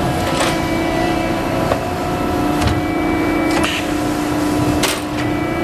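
Hydraulic pump unit of a Horn HMT2 CNC tube bender running with a steady hum that dips slightly in pitch about halfway through. A few brief hissy clicks sound over it.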